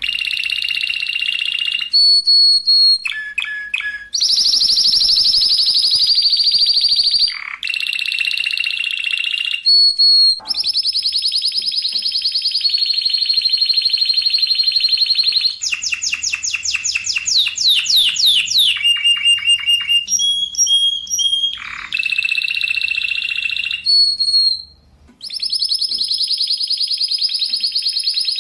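Spanish Timbrado canary singing: long, rapid rolling trills held on one high pitch, switching to new rolls every few seconds, with a passage of quick repeated sweeping notes in the middle and brief pauses between phrases.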